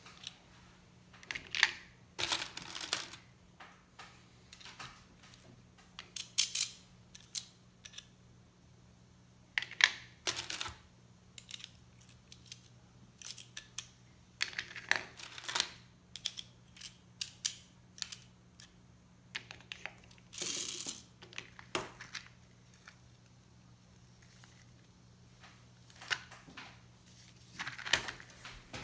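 Brass rifle cases clinking and clicking as they are handled one at a time: fed into a Lee hand priming tool, a primer pressed into each case head with the lever, and the primed cases set into a plastic loading block. Irregular sharp metallic clicks, some in quick clusters, every second or so.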